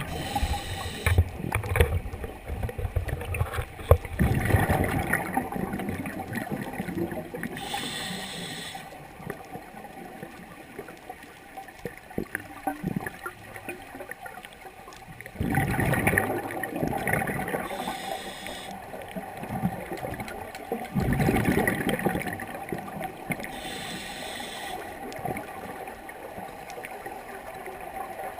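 Scuba diver breathing through a regulator underwater: short hissing inhalations alternating with longer bursts of exhaled bubbles, about three breaths.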